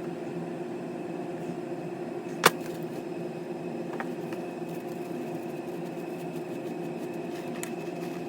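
A steady machine hum with a few fixed tones, like a fan or appliance running, with one sharp click about two and a half seconds in and a few faint ticks.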